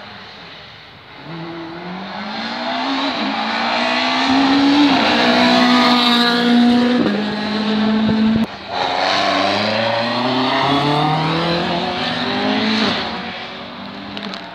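Several rallycross cars accelerating hard past the fence, their engines rising in pitch through the gears and overlapping. The sound drops out for a moment about eight seconds in, then another run of rising engine notes follows and fades as the cars pull away.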